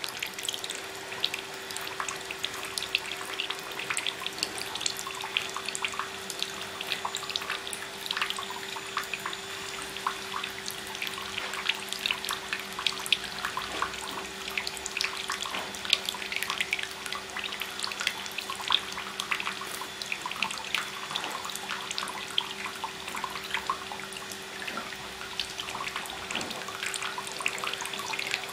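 A thin stream from a bathroom tap running into a sink and spattering on the metal drain, with many small splashes and drips as a peach-faced lovebird bathes and shakes under it. A steady faint hum runs beneath the water.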